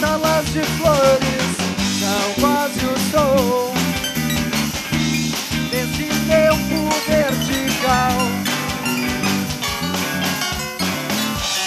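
Live rock band playing an instrumental passage: electric guitars and bass guitar over a steady drum beat, with a melody line that slides and bends in pitch.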